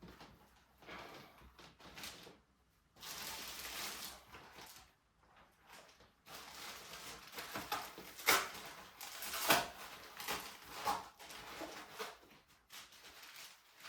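Protective packaging being pulled and handled off a new bike, rustling and crinkling in stretches, with two sharp snaps in the middle.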